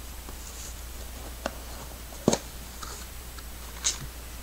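Handling noise from a small cardboard box being opened: a handful of light clicks, taps and rustles, the sharpest a little past halfway, over a low steady hum.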